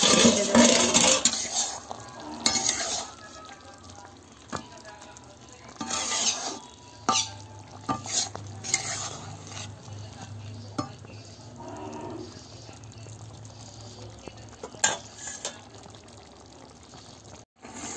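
A spatula stirs and scrapes a thick vegetable curry in an iron karahi as it simmers and sizzles, cooking down until the gravy dries. There is a loud metallic clatter at the start, then scattered knocks and scrapes against the pan.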